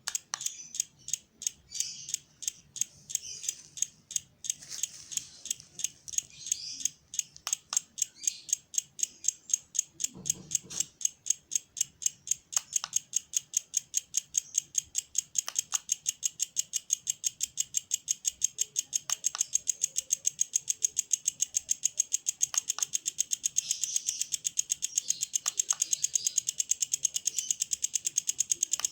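Inverter MMA welding machine pulsing under a fitted PWM pulse-frequency module: rhythmic clicking, a few per second and speeding up, over a steady high whine. A few short beeps sound now and then.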